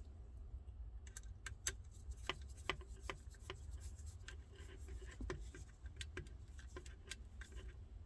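Light, irregular clicks and scratching of small plastic speaker crossover parts and screws being handled and fitted, over a steady low hum.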